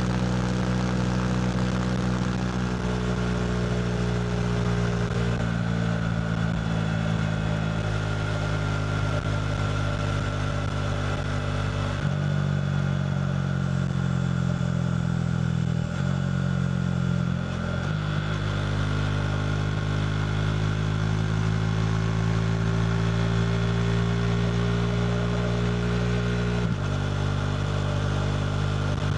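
KTM RC 390's single-cylinder engine running through a Two Brothers slip-on exhaust at steady riding revs. Its note holds level and then steps to a new pitch several times, a few seconds apart, as revs change.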